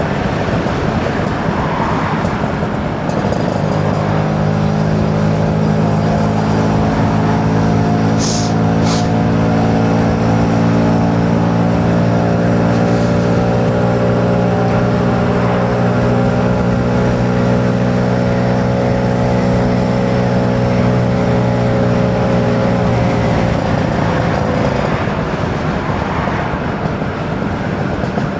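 Two-stroke engine held at steady revs under way, over a constant rush of wind and road noise. The engine note comes in a few seconds in, holds level, then sags and fades out near the end. Two brief sharp ticks come about eight seconds in.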